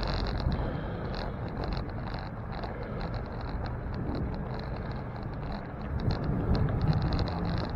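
Steady street traffic and road noise heard from a moving bicycle, with a low hum coming in near the end.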